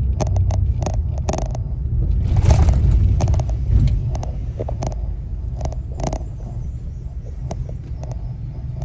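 A vehicle driving slowly, heard from inside the cab: a steady low road and engine rumble with scattered knocks and rattles, and a louder rush of noise about two and a half seconds in.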